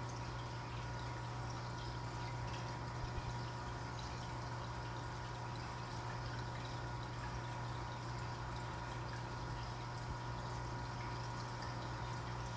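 Aquarium sponge filters bubbling and trickling steadily, over a steady low hum.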